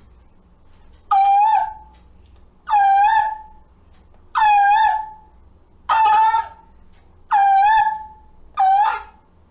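A child imitating a cuckoo's call: six short, high, hooting calls repeated about every second and a half, each with a quick rise at the start before holding steady.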